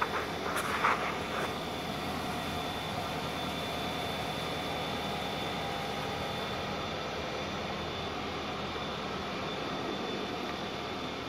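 Steady mechanical hum with a faint high whine running through it, and a brief rustle of handling about a second in.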